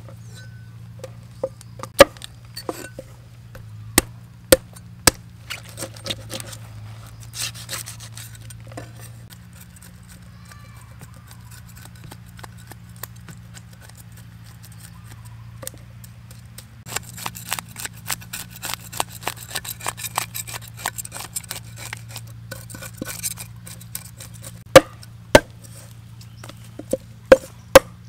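Cleaver scaling and chopping whole fish on a wooden chopping board. Sharp single knocks of the blade on the board come now and then, a stretch of quick scraping and tapping runs through the middle, and several loud chops come near the end.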